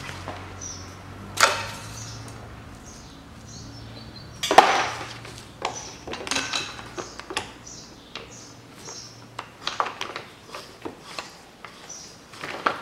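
Hand tools working the intake manifold bolts on a Mitsubishi 4B10 engine: a socket and extension clicking and knocking against the fasteners and manifold in short, irregular strikes. The loudest is a sharp metallic knock about four and a half seconds in.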